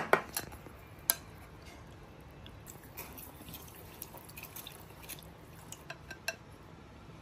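Metal spoon clinking against a glass bowl while stirring and scooping wet grass jelly cubes. The sharpest clinks come near the start and about a second in, followed by scattered lighter taps and small wet sounds.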